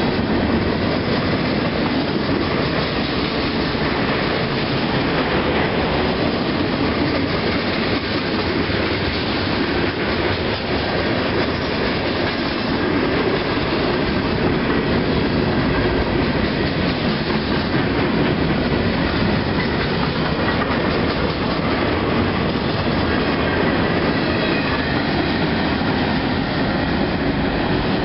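Freight train cars rolling past close by on the rails in a steady, loud, unbroken noise of wheels on track.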